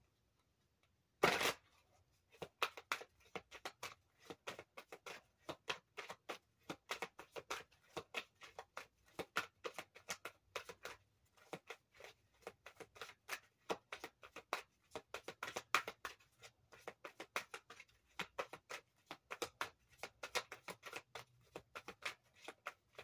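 A deck of tarot cards being shuffled by hand: quick, irregular card slaps and clicks, several a second, with one louder rush of noise about a second in.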